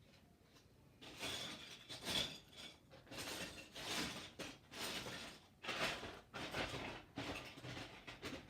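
Rummaging through objects, a run of irregular rustles and clatters starting about a second in.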